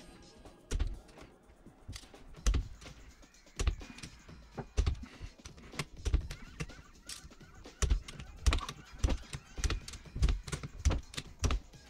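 Irregular metallic clicks and knocks from hand tools and engine parts being handled during work on a KTM 350 SX-F engine's top end.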